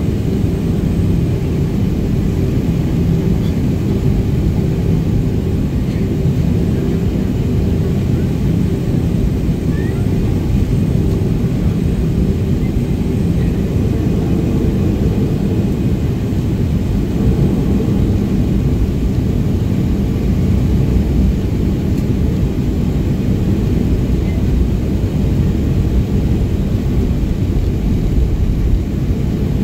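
Jet airliner cabin noise while taxiing: the steady low rumble of the engines at taxi power, heard from inside the cabin, with a humming tone that fades about halfway through.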